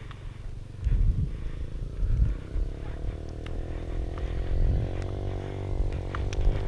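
A vehicle engine running with a pitch that climbs steadily over several seconds, as it speeds up or draws nearer, over a low rumble with heavy bumps.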